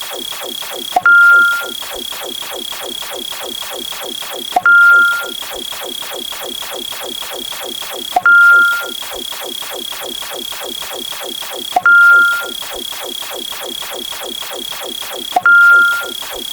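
Electronic synthesizer background music with a steady fast pulse, interrupted five times, about every three and a half seconds, by a short loud beep-like sound effect with a sharp start.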